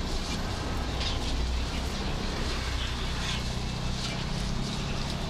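Cleaver cutting crispy roast pork belly on a wooden chopping block: a few scattered, fairly soft knocks. Steady market background noise runs beneath, with a low hum coming in about two seconds in.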